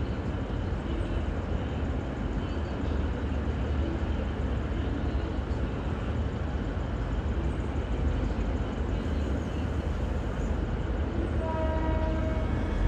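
V/Line VLocity diesel railcar set running with a steady low rumble. Near the end, a brief faint two-tone horn sounds.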